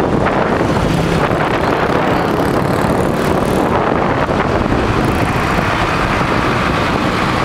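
Loud, steady road noise from a moving vehicle in heavy traffic: engines and tyres, with wind buffeting the microphone.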